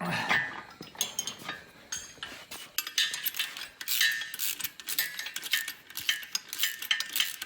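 Hand tools on steel bolts: a string of sharp metallic clicks and clinks, coming thicker in the second half, as the bolts holding the engine to the stand are tightened.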